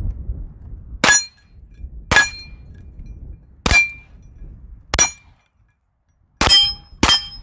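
Six shots from a Ruger PC9 9 mm semi-automatic carbine, each with the ring of a steel plate target being hit. The first four come about a second or more apart, the last two quicker.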